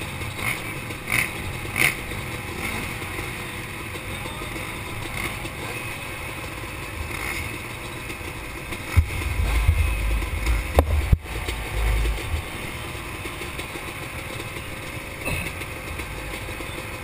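Motocross bikes idling at the start gate, heard muffled and rough through a loosely mounted helmet camera. From about nine to twelve seconds in, a low rumble with a few sharp knocks rises over the engine sound.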